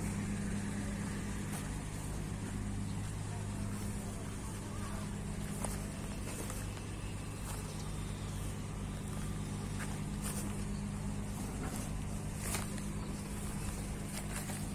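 Slipway winch engine running steadily, a low even hum, with a few faint clicks over it.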